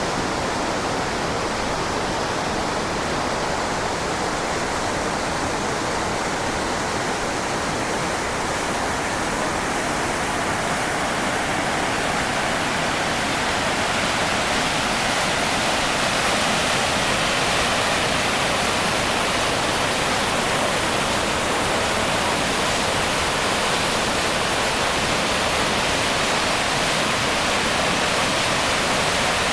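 Kivach waterfall: a steady rush of water pouring over rock, growing slightly louder and brighter about halfway through.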